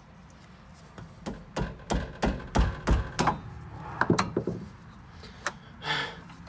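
A quick, uneven series of about a dozen sharp knocks, like hammer strikes on brake hardware, over roughly three seconds, followed by a short scrape near the end.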